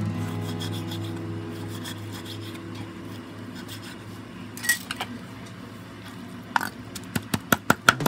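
A knife slicing raw pork fat on a wooden chopping board, with scraping and light clicks and one louder knock about halfway through, over a steady low hum. About seven seconds in, a cleaver starts chopping rapidly on the board at about five strikes a second.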